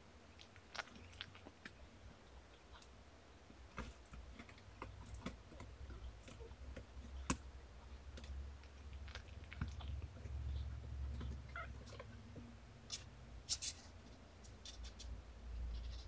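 Faint, scattered small clicks and rustles of two-week-old kittens crawling about on a blanket, with a few brief, soft kitten mews.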